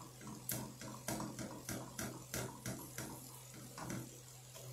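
A spatula scraping and stirring browned ground beef in a skillet: quick repeated strokes, about three or four a second, stopping about four seconds in.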